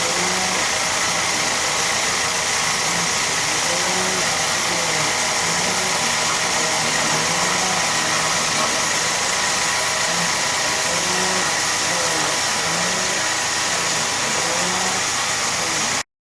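CNC-converted mini milling machine running a program, its spindle spinning and the axis drive motors changing pitch as the table moves while it mills an aluminium vise jaw. The sound is steady and continuous and cuts off abruptly near the end.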